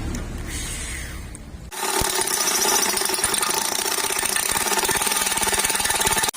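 A power tool working metal starts up about two seconds in and runs steadily with a fast, rattling buzz, then cuts off suddenly near the end.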